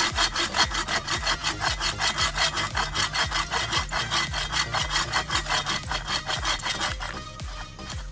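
Sven folding camp saw's toothed steel blade cutting through a wooden branch in quick, even back-and-forth strokes, several a second, easing off near the end.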